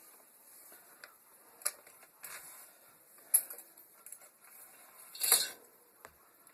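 Bicycle chain being handled and fed onto the sprockets: scattered small metallic clicks of the links, with a short rattle about five seconds in.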